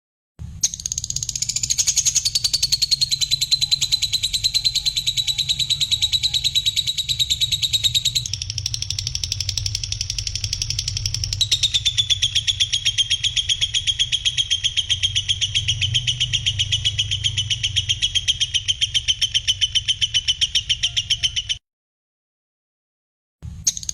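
A songbird's fast, harsh rattling trill, high-pitched and held unbroken for about twenty seconds. It steps down in pitch twice, then stops abruptly and starts again near the end. It is a bird-song training recording with a low steady hum beneath the call.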